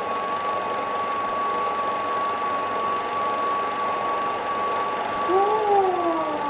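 A steady high-pitched whine held on one note over a constant hiss. About five seconds in, a pitched sound, like a voice, slides up and then down.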